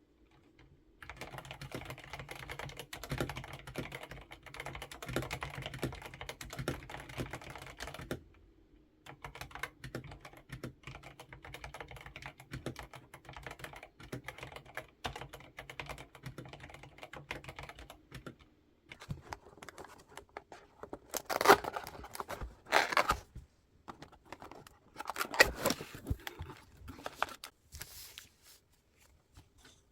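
Mechanical keyboard being typed on: fast runs of key clicks that pause briefly about 8 and 18 seconds in, with a few louder, heavier strokes in the later part. The board is a Zuoya GMK67 fitted with Haimu Midnight switches.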